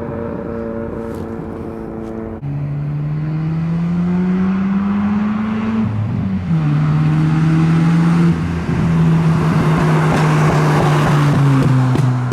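Mazda RX-7's carbureted 12A two-rotor engine, breathing through a catless exhaust and a small muffler, pulling under throttle. The pitch jumps about two seconds in and climbs steadily, drops suddenly about six seconds in as if at a gear change, then holds and eases off near the end.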